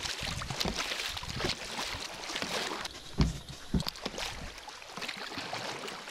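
Water splashing and sloshing around a kayak, with irregular paddle splashes, and two heavier low thumps a little after three seconds in.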